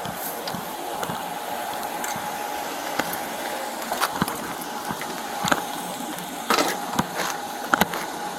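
Scattered sharp clicks and knocks over a steady hiss, coming closer together in the last few seconds.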